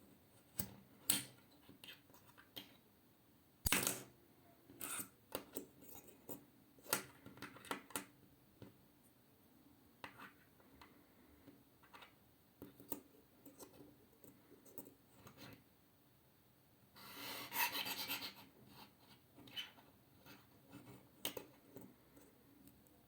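A metal hairpin clicking and scraping in irregular taps and short scratches, with a longer run of scraping about three-quarters of the way through.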